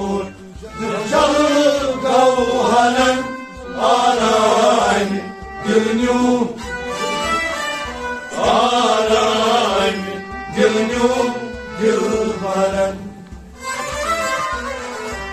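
Men singing a Kashmiri Sufi kalam in a chanting style to harmonium, rabab, a bowed string instrument and a hand drum. The voices come in short phrases with brief breaks between lines, over the harmonium's steady held notes.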